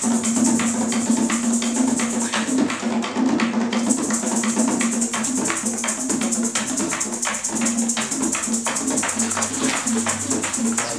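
Background music: a fast, even rattle of maracas over plucked strings.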